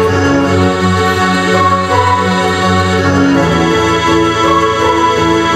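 Music with sustained organ-like keyboard chords that change every second or so.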